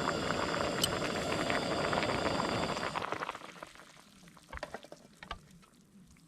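Food bubbling and sizzling in a cooking pot, loud for about three seconds, then fading away to a few light clicks.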